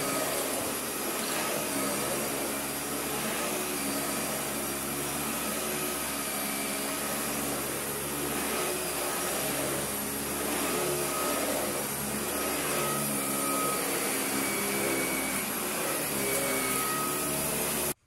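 Dyson cordless stick vacuum running steadily with its motorised brush head pushed over thick carpet, a constant high motor whine over the suction rush.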